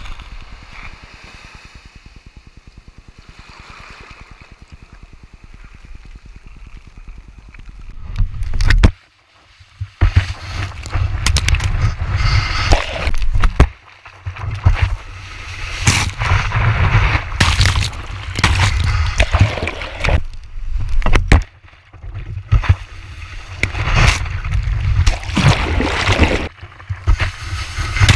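Shallow beach wash sloshing faintly around a low action camera at the water's edge. About ten seconds in it gives way to loud, uneven rushing and splashing, with brief lulls, as the skimboard carrying the camera skims across the thin wash.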